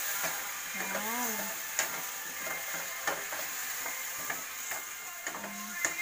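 A wooden spatula stirring pork, potato cubes and string beans in a steel wok, with repeated scrapes and knocks against the pan. Under it runs a steady sizzle of the food frying with freshly added soy sauce.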